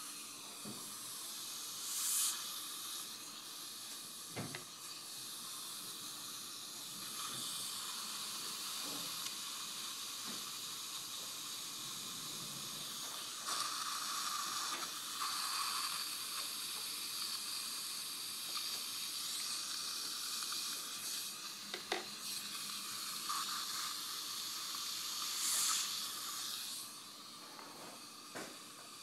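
Steady high-pitched hiss of dental suction running through a cheek-retractor suction device, louder through the middle and dropping off near the end. Two short, louder hissing bursts come about two seconds in and again near the end, and a couple of sharp clicks are heard.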